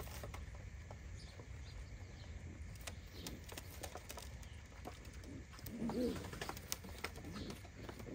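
American Show Racer pigeons cooing, with a low coo loudest about six seconds in. A few sharp clicks are scattered through it.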